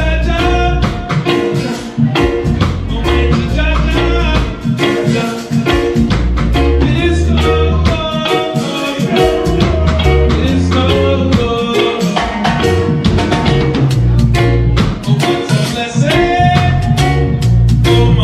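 Live roots reggae band playing, with bass, drum kit and a wavering melodic lead over the groove.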